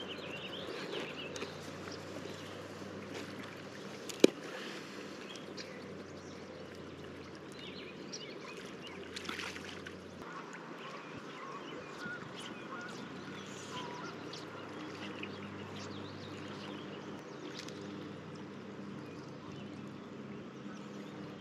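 Shallow river water running steadily over stones, with one sharp click about four seconds in.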